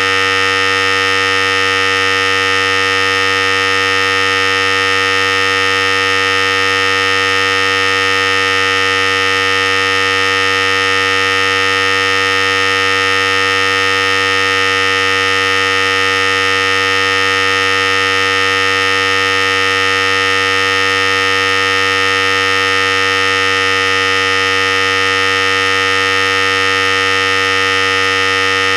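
Philips Series 5000 electric hair clipper running steadily, giving an even, unchanging buzz.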